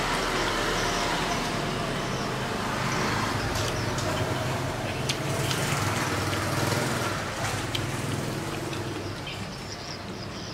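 A motor vehicle's engine running nearby, a steady hum and rush that eases off about seven seconds in. A few light clicks of a spoon against the stainless steel tray sound over it.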